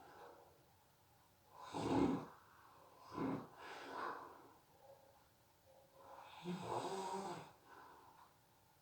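A sleeping person snoring: a loud snore about two seconds in, two shorter rasping breaths around three to four seconds, and a longer snore near seven seconds, with quiet pauses between them.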